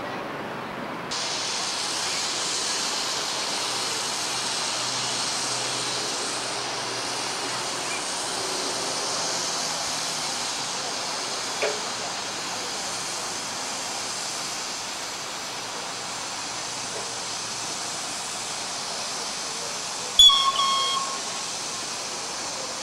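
Steady hiss of steam from a ridable live-steam miniature locomotive, starting about a second in. Near the end comes one sharp metallic clang with a short ring.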